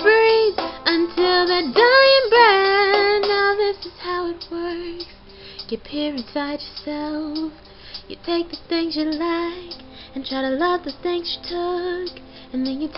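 A young woman singing solo, with loud held notes over the first few seconds, then softer, shorter phrases.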